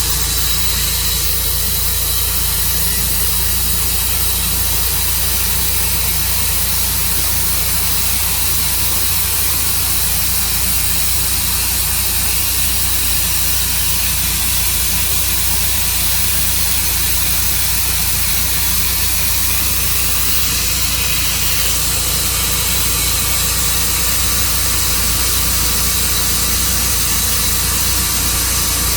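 Tru Cut sawmill running steadily: a constant engine hum under a loud hiss, with no pauses or changes.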